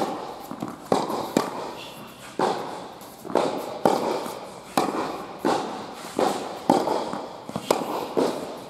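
Tennis ball struck by rackets in a baseline rally, with the ball's bounces between strokes: sharp pops every half second to a second, each followed by a hall echo.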